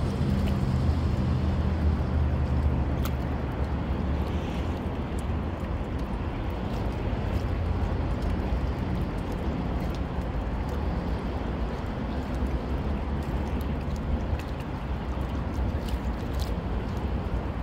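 A low, steady engine hum over a constant wash of outdoor noise, the hum fading somewhat after the first several seconds.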